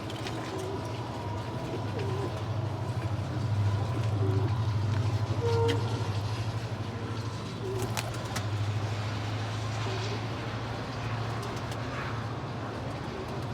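Domestic pigeons cooing in short calls every couple of seconds, over a steady low hum.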